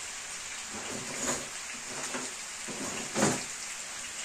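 Sausage and potato cubes sizzling steadily in a frying pan on a gas stove, with two dull knocks, one about a second in and a louder one past three seconds.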